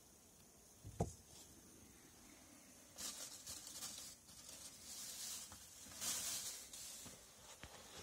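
A single dull thump about a second in, then uneven rustling and light footsteps of a person moving about on the wooden floor of a small hut from about three seconds in.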